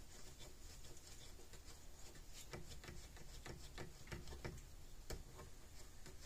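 Terminal knob being screwed back and forth on a fence energizer's threaded output post, its threads freshly wetted with cutting oil so it can tighten down all the way: faint, irregular small clicks and scratching, busiest from about two and a half to four and a half seconds in.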